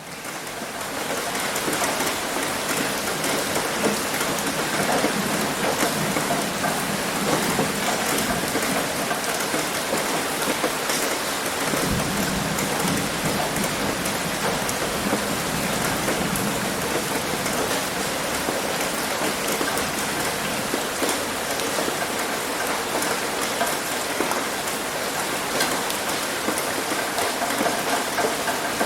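Heavy rain pouring onto a roof and splashing on concrete, a dense steady hiss scattered with individual drop hits. It fades in over the first second or so, then holds steady.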